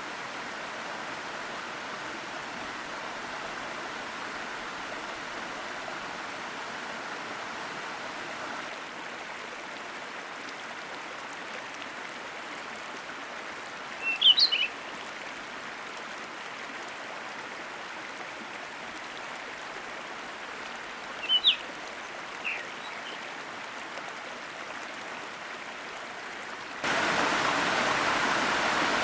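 Steady rush of water from a forest waterfall and stream. A bird chirps briefly about halfway through and again a few seconds later. Near the end the water sound abruptly becomes louder.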